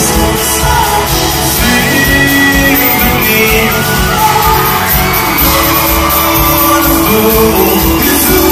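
Live pop music in a large arena: a band playing with singing, amid crowd screaming and cheering, echoing in the hall.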